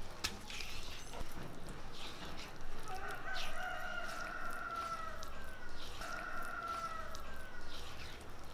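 A rooster crows twice in the background, two long calls with a slight fall in pitch, the second shorter. Underneath are short scraping and slapping sounds of a hand gathering ground spice paste on a stone grinding slab.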